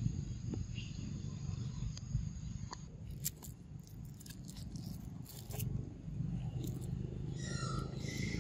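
Low rumble of wind on the microphone, with scattered light clicks and rustles in the middle, and a short high-pitched animal call about a second before the end.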